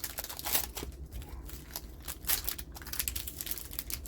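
Booster-pack wrappers crinkling and clear plastic trading cards clicking against each other as they are handled, in irregular short rustles and ticks.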